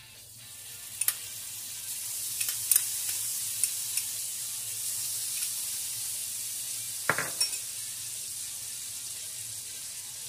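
Butter sizzling as it melts in a hot frying pan, the hiss building over the first couple of seconds and then holding steady, with light pops and clicks and one louder knock about seven seconds in.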